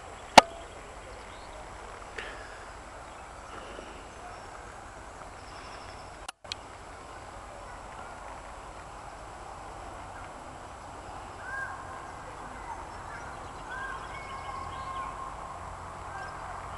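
Open-air ambience: a steady faint hiss with a few short bird calls in the second half. There is a sharp click about half a second in, and the sound drops out briefly about six seconds in.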